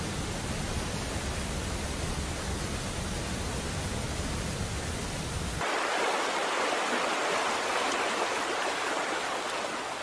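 Steady rushing hiss of noise with no tune. A little over halfway through, the deep rumble under it cuts out suddenly and the hiss turns brighter.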